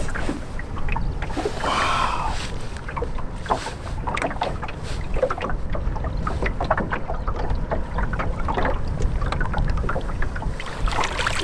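Choppy water lapping and slapping against the hull of a small boat in irregular short splashes, with wind rumbling on the microphone.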